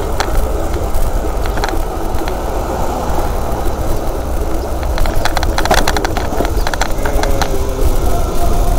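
Steady low rumble of wind and road noise on a camera riding along on a moving bicycle, with traffic in the street and a quick cluster of clicks about five to six seconds in.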